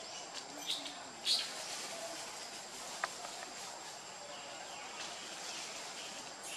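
Outdoor forest ambience with a steady high-pitched insect drone, broken by a couple of brief sharper sounds about a second in.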